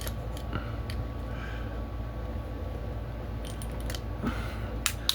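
Padlock and small metal lock tools being handled: scattered light metallic clicks and rattles, with a quick run of clicks near the end.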